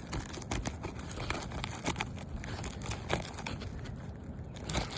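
Asphalt roof shingle being pried up from its sealed-down strip with a shingle snake tool: a run of irregular crackles, clicks and scrapes as the sealant bond and the shingle give way.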